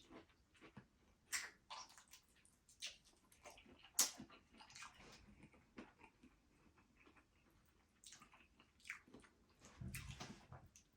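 Close-up eating sounds: wet, irregular chewing and lip-smacking on sauce-coated lobster tail, with scattered sharp smacks, the loudest about four seconds in.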